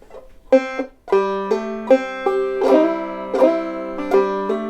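Clawhammer banjo in double C tuning (gCGCD) playing a melody phrase: one picked note about half a second in, then a steady run of picked and ringing notes from about a second in.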